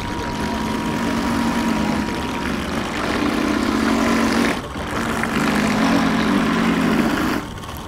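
Radio-controlled model boat engine running at a fairly steady pitch, cutting off abruptly for a moment a little past halfway and dropping away near the end.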